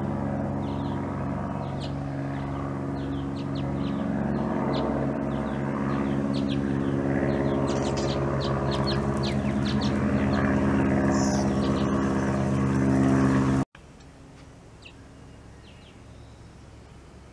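Short, high bird chirps, several in quick runs, over a louder steady low drone that holds one even pitch and slowly grows louder. The drone cuts off abruptly about fourteen seconds in, leaving only faint chirps.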